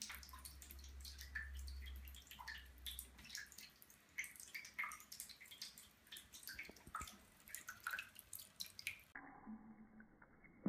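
Faint, irregular dripping and light splashing from a thin stream of water running out of a bathtub faucet into the tub.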